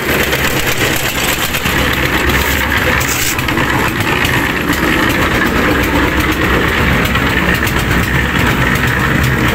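An engine running steadily at an even speed, a constant low drone.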